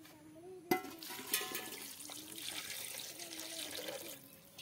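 Water poured from a steel bowl into a blackened kadai holding raw chicken pieces: a sharp clank about a second in, then a steady stream of pouring water that stops shortly before the end.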